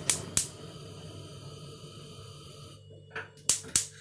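Gas hob's electric igniter clicking about four times a second, twice near the start and again in a run near the end, with a steady hiss of gas between the runs as a burner is lit.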